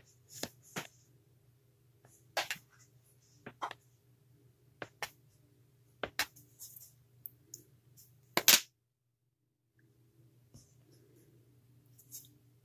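Scattered light clicks and taps of sculpting tools and clay being handled on a work surface, the loudest a sharp knock about eight and a half seconds in, over a faint steady low hum that drops out for about a second just after it.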